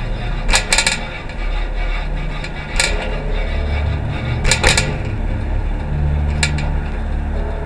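A rusty mamachari city bicycle being ridden, its worn, rusted metal parts clanking and rattling sharply every couple of seconds over a steady low rumble of the ride.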